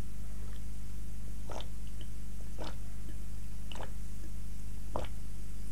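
A person gulping a drink from a glass, four swallows about a second apart, over a steady low hum.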